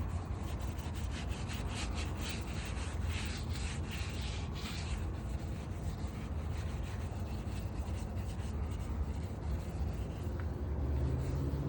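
Quick, repeated scratchy rubbing strokes on the rusted car roof, dying away about five seconds in, over a steady low rumble.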